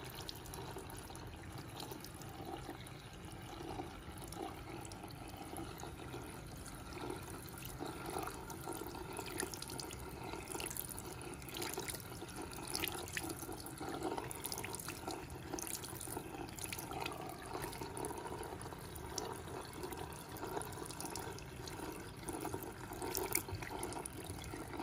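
Tap water running steadily into a ceramic washbasin and splashing off a wet scalp, with irregular wet rubbing from a washcloth mitt worked over the head.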